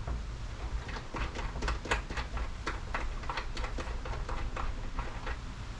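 Irregular light clicks and taps of a wire and small terminal parts being handled by hand while a battery cable is fitted to a solar charge controller, over a low steady rumble.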